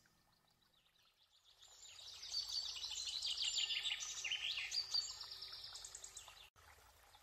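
A flock of Eurasian tree sparrows chirping, many short chirps overlapping, building up about a second and a half in and fading near the end.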